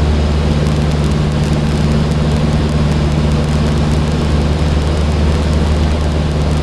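Cessna 152's four-cylinder Lycoming O-235 piston engine and propeller droning steadily in level flight, heard from inside the small cockpit.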